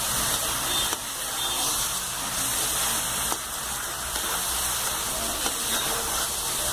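Boiled pasta and potatoes sizzling in hot oil and tomato-onion masala in a kadhai as they are stirred: a steady frying hiss with a few faint clicks.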